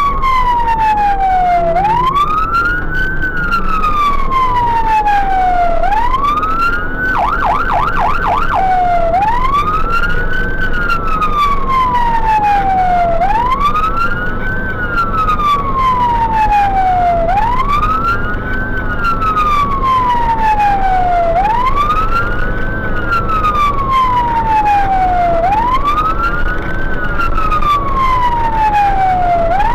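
Fire engine siren wailing, each cycle a quick rise and a slower fall in pitch, repeating about every four seconds, with a brief run of rapid yelps about seven seconds in. Underneath is the low, steady rumble of the engine and road noise.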